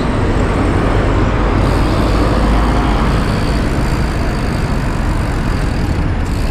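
Steady rushing noise from riding a bicycle along a city road: wind on the microphone and tyres on tarmac, with car traffic around.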